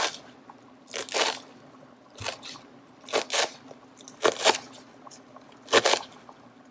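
A kitchen knife chopping through a pile of fresh parsley and cilantro on a plate. It comes as crunchy chops roughly once a second, often in quick pairs.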